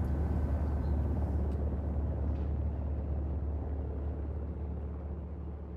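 A low, steady rumble that slowly fades out.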